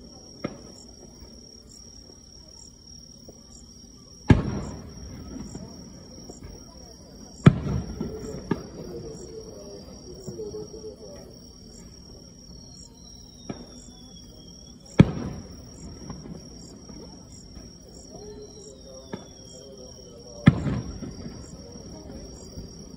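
Distant aerial firework shells bursting: four loud booms a few seconds apart, each with a rolling echo, and a few fainter pops between them. Insects chirp steadily in the background.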